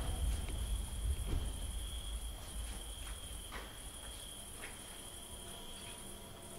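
Crickets trilling steadily in the night air, a continuous high tone, with a low rumble and a few faint clicks beneath.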